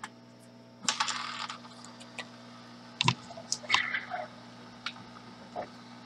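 Scattered clicks and light clatter of small hand tools being handled on a workbench, a handful of sharp ticks spread over a few seconds, over a steady low electrical hum.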